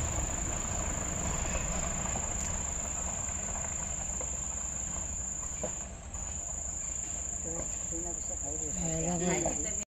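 Night insects trilling steadily in one high unbroken tone, over a low rumble of a vehicle engine. A brief wavering voice comes near the end.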